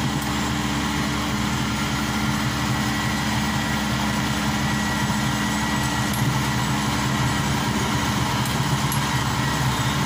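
Maxxi Bimo 102 rice combine harvester's diesel engine running steadily at an even pitch as the tracked machine drives slowly forward.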